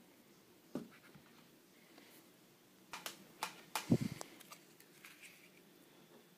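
Handling noises as a laser pointer is set down in its presentation box: a single click about a second in, then a quick cluster of clicks and knocks around three to four seconds in, with a dull thud as the loudest.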